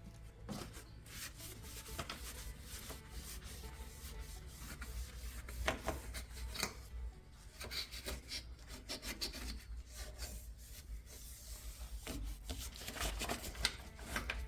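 A rag scrubbed back and forth in quick, irregular strokes, wiping dirt off the third brake light's mounting area so the new gasket will seal.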